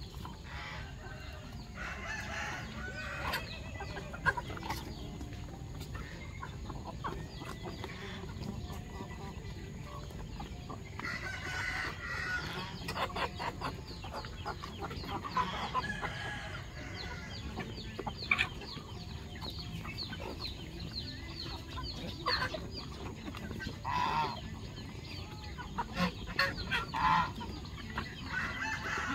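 Chickens in a feeding flock clucking and calling, many short calls overlapping all through, busier from about halfway in.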